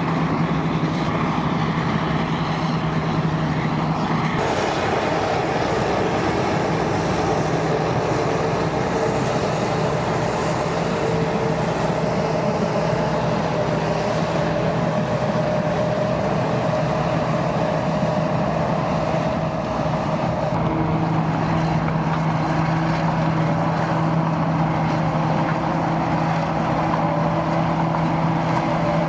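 Caterpillar D8K crawler tractor's diesel engine running steadily as it tows a 463G hydraulic scraper stripping topsoil. The sound shifts abruptly about four seconds in and again about twenty seconds in.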